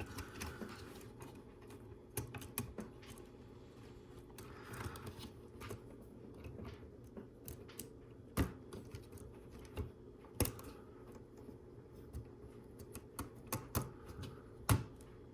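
LEGO Technic plastic parts clicking and knocking as they are handled and pressed together while the door is fitted to the model. The clicks are scattered and irregular, with the sharpest ones about eight, ten and fifteen seconds in.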